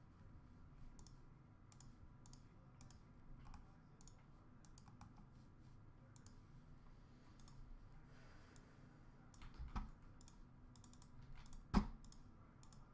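Faint, irregular clicking of typing on a computer keyboard, with two dull thumps in the last few seconds, the second the loudest.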